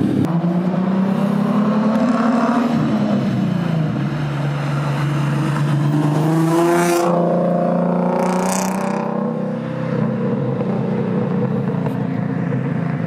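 Car engines running and revving, the engine note rising and falling several times. A brief hiss comes about eight and a half seconds in.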